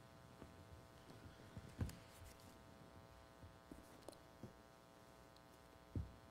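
Near silence: room tone with a faint steady hum, broken by a few soft knocks and clicks, one a little under two seconds in and a slightly louder one near the end.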